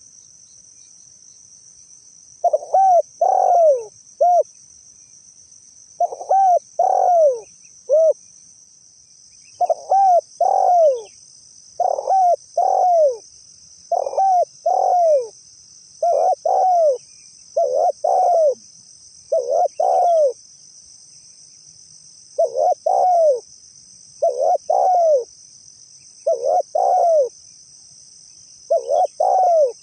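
Spotted dove (tekukur) cooing: short phrases of two or three arched coo notes, repeated about every two seconds after a short pause at the start, over a steady high buzz.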